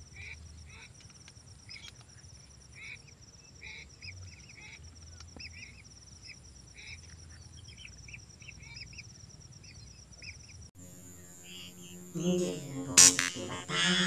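Faint short bird calls repeat every half second or so over a steady high insect drone. About eleven seconds in, loud goose-like honking waterfowl calls start abruptly and take over.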